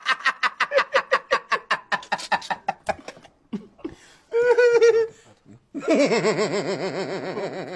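A person laughing heartily: a quick run of 'ha-ha' pulses, about five a second for some three seconds, then after a pause a long, wavering drawn-out laugh.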